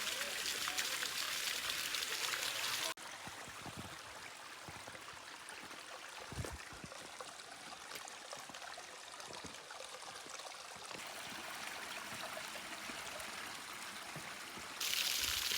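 Rushing water of a waterfall as a steady hiss. It drops abruptly to a quieter, duller rush about three seconds in and jumps back up to full loudness near the end. There is a single low thump about six seconds in.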